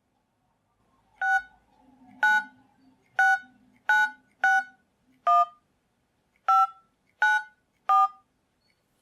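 Cellphone keypad tones as a number is dialed: nine short beeps, each a two-note touch tone, at uneven intervals.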